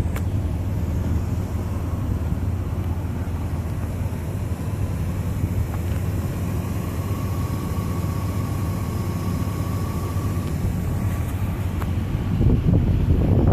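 BMW 740i's V8 engine idling steadily, a constant low rumble.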